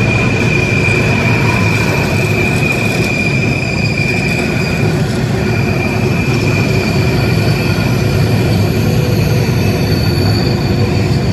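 Norfolk Southern double-stack intermodal train's container cars rolling past on a sharp curve: a steady low rumble of wheels on rail with a high, sustained wheel squeal over it, which drops away briefly about five seconds in and comes back.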